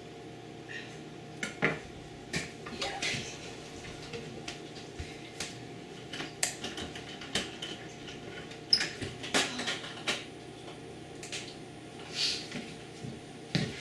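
Hand-cranked meat grinder being worked as raw gar fish is fed through it, with irregular metallic clicks and clanks from the crank and the metal body.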